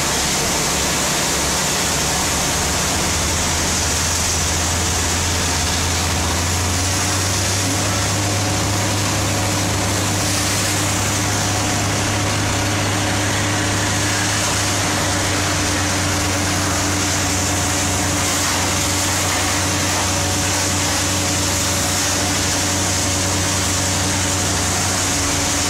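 Fire apparatus diesel engines running steadily at pump, with a steady hiss of water from the hose streams. The engine note steps up slightly about seven seconds in.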